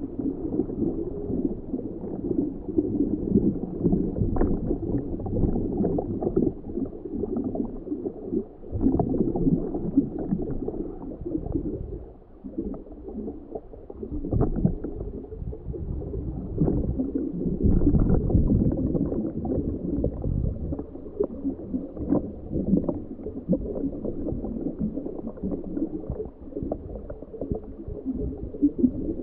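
Muffled, gurgling underwater water noise picked up through the sealed housing of a homebuilt ROV's camera, rising and falling in level with scattered small ticks and a dip about twelve seconds in.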